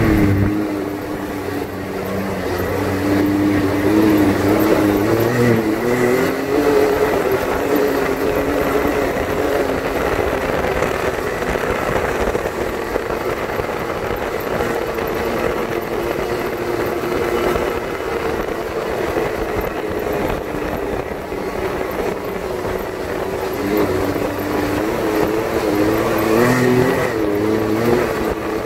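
Can-Am X3 Turbo R side-by-side's turbocharged three-cylinder engine running under way, its note rising and falling with the throttle: climbing about five seconds in and again near the end, over a steady haze of tyre and wind noise.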